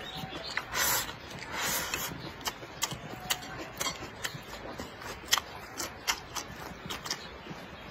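A person eating close to the microphone: two short slurps about a second and two seconds in, then chewing with sharp wet smacking clicks a few times a second.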